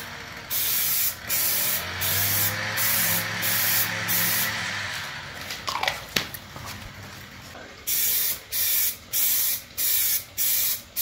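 Aerosol can of Plasti Dip spraying in short, even bursts. There is a run of about seven quick squirts, a pause of about three seconds, then another run of about six near the end, as a coat is laid on a car emblem.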